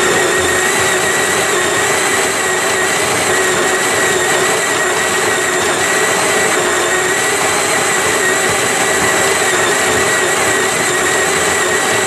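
Capresso Infinity conical burr grinder's 100-watt electric motor running steadily, grinding coffee beans at the finest setting, with a steady whine over the grinding noise.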